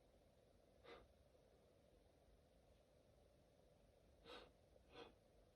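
A person's faint, short breaths, three of them: one about a second in and two close together near the end, during a sneezing fit.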